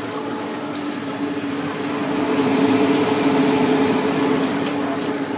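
Extra cooling fans set between and under commercial fridges running with a steady hum and whoosh of air, louder for a couple of seconds in the middle.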